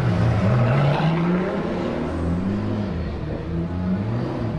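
Supercar engines running at low revs and light throttle, the engine note wavering up and down with small blips. A Pagani Huayra rolls past close by, then a McLaren P1 GTR approaches.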